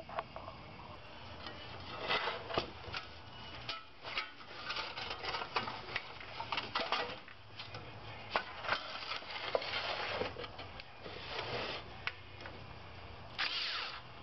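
Hands handling metal burner parts and wires on a steel workbench: scattered clicks, knocks and rubbing scrapes, with a short denser scraping burst near the end.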